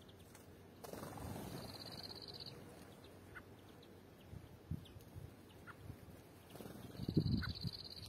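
Small finches calling at a drinking pool: two rapid high trills about a second long, one early and one near the end, and a few short chip notes. Low rustling bumps run beneath, loudest near the end.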